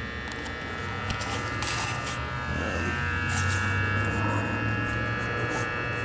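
A steady low hum with faint steady high tones above it, and a few brief rustles and clicks of handling.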